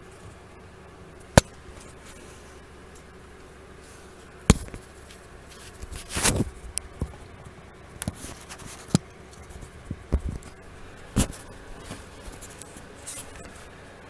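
Handling noise close to the microphone: a few sharp knocks and clicks, followed by scattered bouts of cloth rustling and scraping in the second half.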